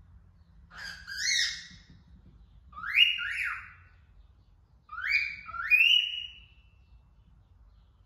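Female cockatiel calling: three loud two-note calls about two seconds apart, each note sliding up and then down.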